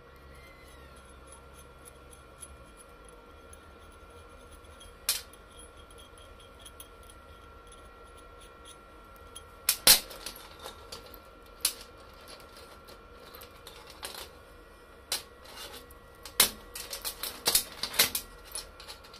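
Scattered metal clinks and knocks of steel parts handled on a steel workbench: hex nuts and a threaded steel rod set down, then a quick run of clinks near the end as a roller chain is picked up.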